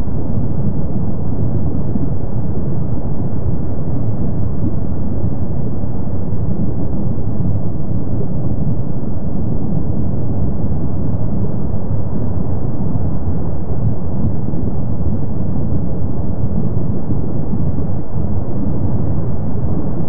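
Steady low rumble of Kilauea's erupting lava lake with its lava fountains spattering, an even, unbroken noise with no distinct bursts.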